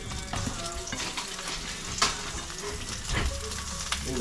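Seafood frying in butter in a frying pan: a steady sizzle, with a few sharp clicks and scrapes of a utensil against the pan.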